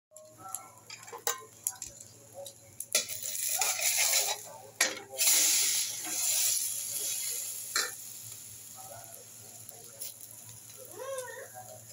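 Slice of French toast frying in a steel wok: a few metal utensil clinks against the pan, then a loud sizzle for about four seconds as liquid is spooned over the bread, easing back to faint frying.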